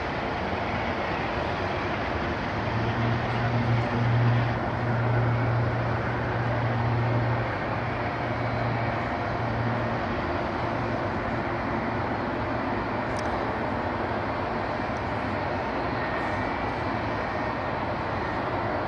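An Airbus A380's Rolls-Royce Trent 970 jet engines running as the airliner rolls along the ground: a steady jet rumble with a low drone that swells a few seconds in and eases off again.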